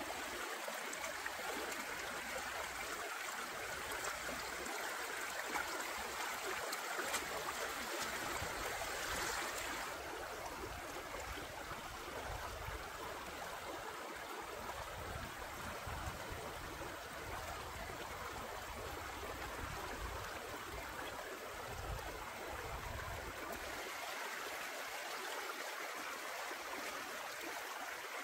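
Shallow stream rushing steadily over rocks, a little quieter after about ten seconds.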